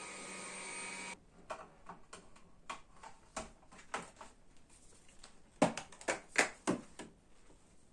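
A steady whirring appliance noise cuts off suddenly about a second in, followed by a run of irregular light clicks and knocks, with a quick cluster of louder knocks about six seconds in.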